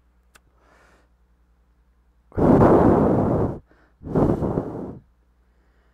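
A man breathing deeply close to the microphone: a long, loud breath, then a second shorter one about half a second later. A faint click comes just before.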